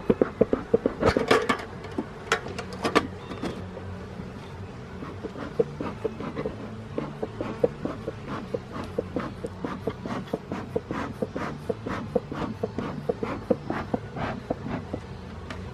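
Honeybees humming steadily at an opened hive, with many short sharp clicks and knocks from handling, coming two or three a second and loudest in the first few seconds.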